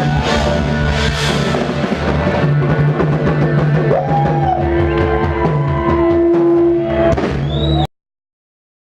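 A rock band playing live, with a drum kit and held instrumental notes and no singing, cutting off abruptly to silence near the end.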